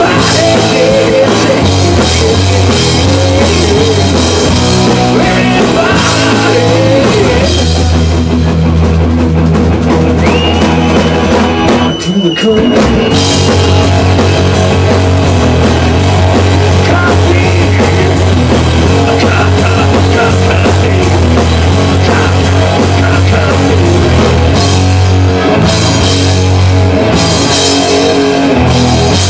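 Rock band playing loud and live, led by a driving drum kit under guitars, with a brief break about twelve seconds in.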